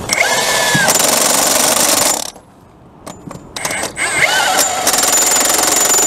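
Impact wrench run on the nuts of a trailer wheel being refitted: two runs of rapid hammering, the first about two seconds long, the second starting about four seconds in. Each opens with a short motor whine.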